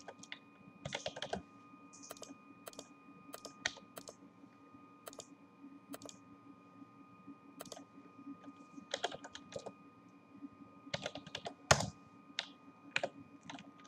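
Computer keyboard keystrokes and clicks, sparse and irregular, with denser bursts of typing about nine seconds in and again near the end. A faint steady hum runs underneath.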